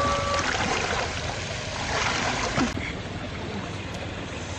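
Steady watery rushing noise with soft wet handling sounds as small fish are picked out of a wet mesh net. A bell-like chime dies away in the first half second.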